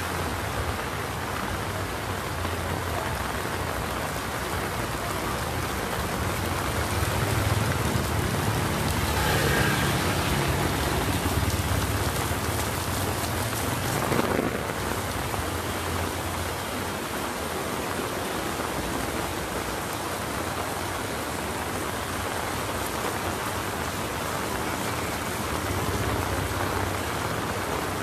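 Heavy rain pouring onto a wet street and pattering on an umbrella overhead, a steady hiss. A low rumble swells for a few seconds about a third of the way in, and there is a brief sharp knock about halfway through.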